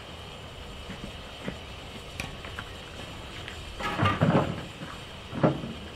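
Yard sound around narrow-gauge steam locomotives standing in steam: a steady hiss and wind rumble on the microphone, with light clicks and two louder knocks, about four and five and a half seconds in.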